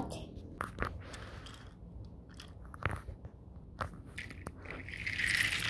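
Handling noise of die-cast toy trains moved by hand over a carpet: scattered small clicks and knocks, with a louder scraping rustle about five seconds in.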